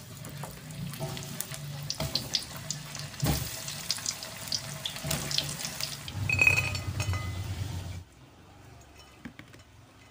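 Tempeh slices frying in hot cooking oil in a wok, a steady sizzle full of small crackles and pops. About six seconds in there is a louder stretch, and the sound drops away for the last two seconds.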